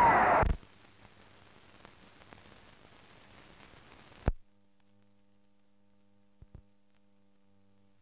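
A loud stretch of old film sound stops abruptly about half a second in, leaving faint soundtrack hiss. A single sharp click comes about four seconds in, and after it only a low, steady mains hum with two faint ticks remains.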